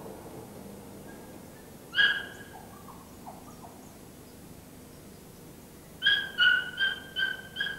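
A puppy whimpering: one high cry about two seconds in, followed by a few softer squeaks, then a quick run of about six high yelping cries near the end.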